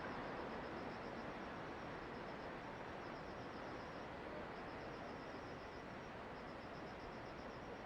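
Steady rushing noise of the approaching typhoon's wind and rain, with insects chirping high in rapid pulses, in runs broken by short gaps.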